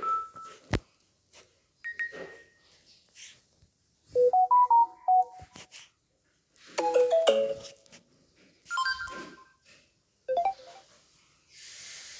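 Samsung Galaxy S10 ringtones played one after another: short melodic phrases of a few bright notes each, every one stopped after about a second before the next begins, with a sharp click about a second in.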